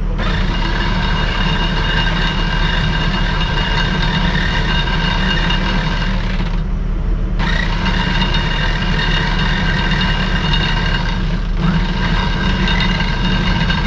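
Machinery running steadily on a sailboat during the mainsail hoist: a continuous low drone under a higher steady whine. The whine drops out for under a second about seven seconds in and again near twelve seconds.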